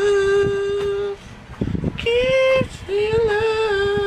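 A voice singing a slow tune in long held notes, with a short break a little over a second in before the singing resumes.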